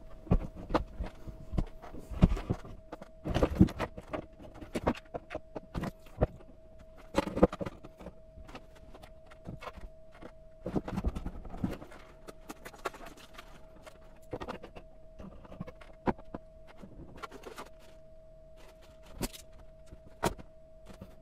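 Irregular knocks, taps and clatters of electronic components and parts being handled and set down on a wooden table and MDF board. A faint steady high hum runs underneath.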